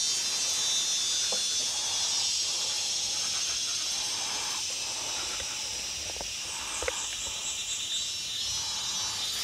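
Forest insects droning steadily at a high pitch. A faster pulsing call joins briefly past the middle, and a single click sounds about seven seconds in.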